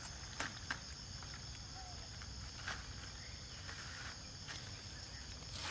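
Steady high-pitched drone of insects, with a few sharp clicks from a knife cutting fruit and leaves on a stone slab.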